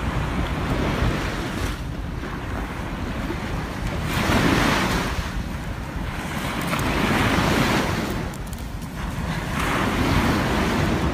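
Surf washing in, swelling up every few seconds, with wind rumbling on the microphone.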